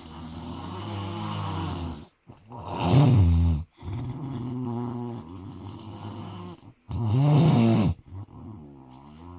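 Snoring in a slow, repeating cycle: two loud snores about four seconds apart, with quieter, lower snoring breaths between them.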